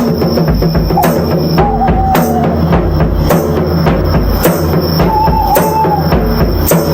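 Drum kit solo with dense, rapid drum hits over a steady low bed of sound, and a held higher tone coming in twice, about a second and a half in and again about five seconds in.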